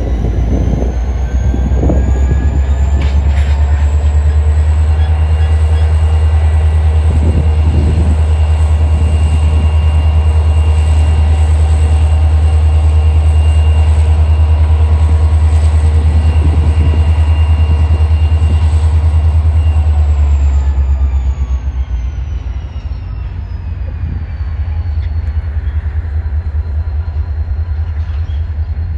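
Diesel locomotive engine running close by, a loud, steady, deep drone with a thin high whine above it. After about twenty seconds the drone eases off and the whine falls in pitch.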